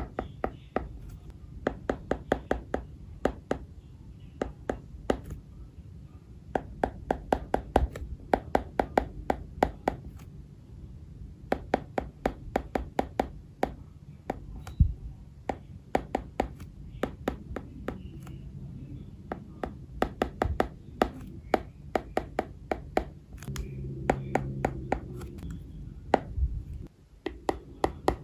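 Stylus tip tapping and sliding on an iPad's glass screen during handwriting: quick clusters of sharp clicks broken by short pauses.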